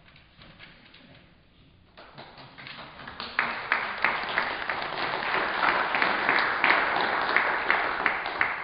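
Audience applauding, starting about two seconds in, swelling, then thinning out near the end.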